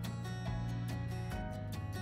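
Background instrumental music with steady pitched notes.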